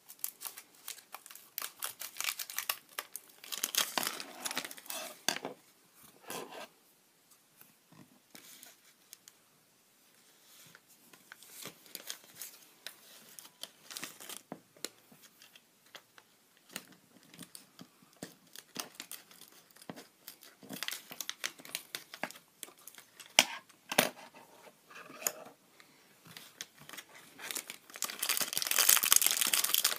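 Foil blind-bag packaging being crinkled and torn open by hand, in irregular bursts with a quieter spell in the middle and a loud, dense stretch of crinkling near the end.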